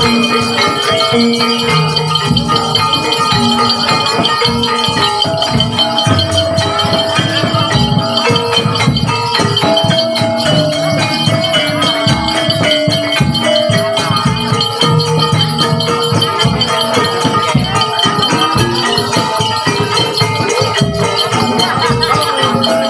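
Live Javanese gamelan music for a kuda lumping dance: a metallophone melody moving in held steps over dense, rapid percussion with jingling.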